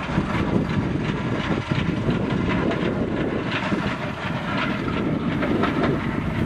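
Steam-hauled train running past, a steady rumble of the locomotive and carriages.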